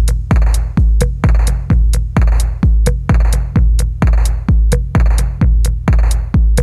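Background electronic music with a heavy kick drum about twice a second, snare hits and ticking hi-hats.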